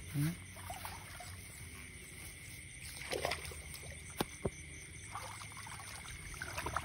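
Feet wading and splashing in shallow muddy field water, with a few scattered sloshes and two sharp clicks a little after four seconds in.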